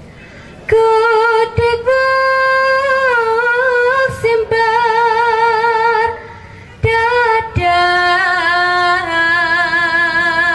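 A woman's voice singing a slow, unaccompanied melody with long held notes and a wavering vibrato, in two phrases with a short break about six seconds in.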